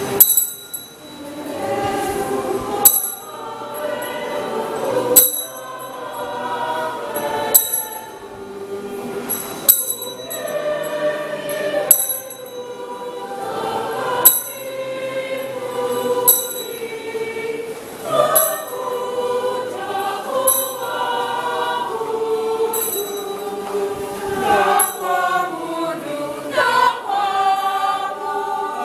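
Choir and congregation singing a hymn together, with a sharp metallic clink about every two seconds.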